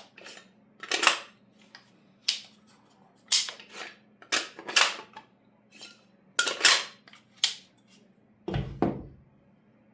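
Irregular sharp clacks of hard parts being handled and knocked together, about a dozen in all, with a duller, deeper thump near the end.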